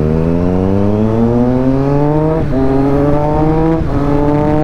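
Triumph Street Triple's three-cylinder engine accelerating hard, its note rising steadily through the gears, with quick upshifts dropping the pitch about two and a half seconds in and again near four seconds.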